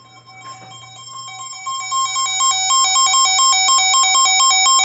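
A weather radio receiver's electronic alert alarm beeping rapidly back and forth between two pitches. It grows louder over the first couple of seconds, then holds steady and loud, and cuts off abruptly.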